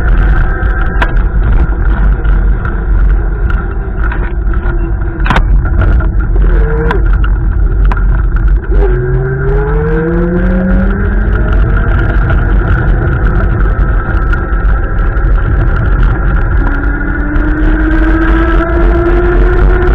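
Storm wind buffeting the microphone as a heavy low rumble, with cars driving past; an engine rises in pitch as it accelerates about nine seconds in, and another slowly rises near the end. A sharp tap sounds about five seconds in.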